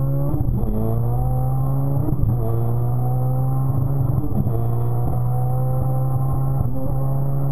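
Turbocharged K24 engine of a 2013 Honda Civic Si running under part throttle, heard from inside the cabin. Its pitch climbs slowly and drops back about every two seconds.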